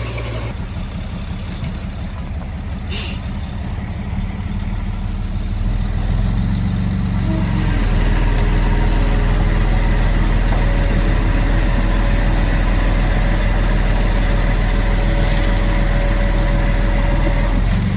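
Heavy diesel earth-moving machine engine running, building up under load about six to eight seconds in and holding there before easing off right at the end. A short hiss comes near three seconds in.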